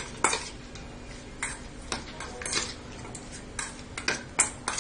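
A spoon clinking against a bowl while chicken pieces are mixed with salt and black pepper: about ten irregular clinks.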